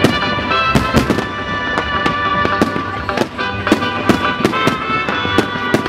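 Aerial firework shells bursting with frequent sharp bangs at irregular intervals over loud rock music.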